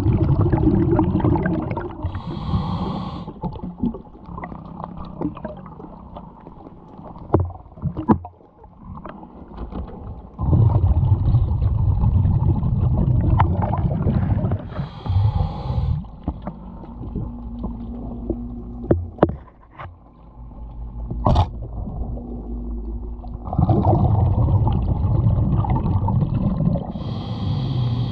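Diver breathing underwater through a regulator: three long bubbling exhalations, each followed by a short hiss of air as the next breath is drawn. A few sharp knocks fall in the quieter gaps between breaths.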